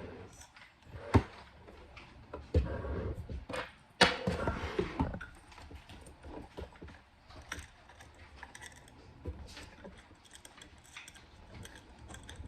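Wooden table parts and screw hardware being handled during assembly of a kids' wood table: a few sharp knocks, the loudest about a second in and about four seconds in, then scattered light clicks and taps as a leg is fitted and screwed on.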